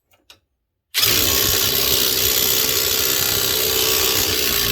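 Ryobi 18V One+ HP brushless 1/2-inch mid-torque impact wrench starting about a second in and running steadily at full power on a grade 8 fine-thread bolt. The nut spins fast, the sign that the threads are stripping rather than the bolt breaking.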